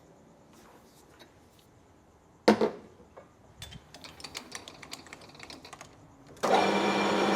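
A sharp metallic clank about two and a half seconds in, followed by a scatter of light clicks and rattles of tooling being handled and set; near the end the metal lathe is switched on and runs steadily with a hum.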